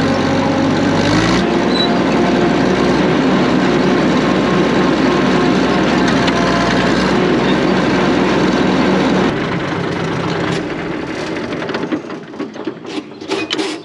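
1950s Caterpillar D6 crawler dozer's diesel engine running steadily, its pitch stepping up about a second in. About nine seconds in it drops back, and by about eleven seconds it has stopped, leaving scattered metallic clicks near the end.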